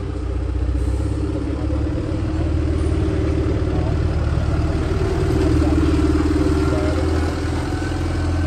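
Iveco Vertis box truck's diesel engine running as the truck pulls out slowly and drives close past, growing louder to a peak about six seconds in.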